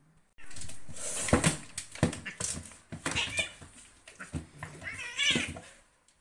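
Two cats fighting: a sudden hiss, sharp knocks of the scuffle, and short wavering yowls about three seconds and five seconds in.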